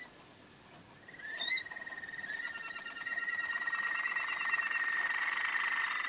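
Waterslager (Malinois) canary singing: a whistled tone with rolling, bubbling trills that starts about a second in and grows louder and fuller from about three seconds.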